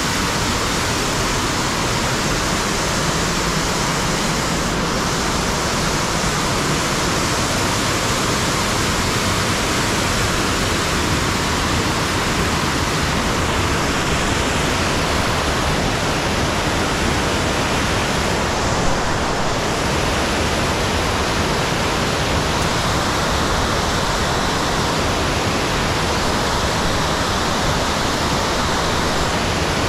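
Buttermilk Falls' water cascading down the rock: a steady, unbroken rush.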